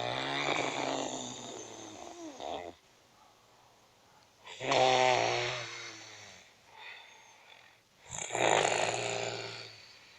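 Snoring: three long snores about four seconds apart, each a low buzzing rattle that fades away, with quiet breathing between them.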